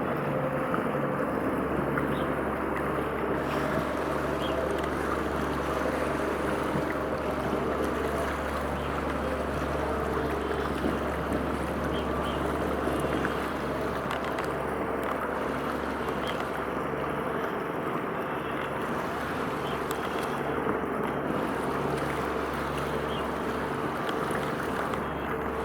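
Steady drone of a ship's engine, a low hum with a slow regular throb, over wind and water noise.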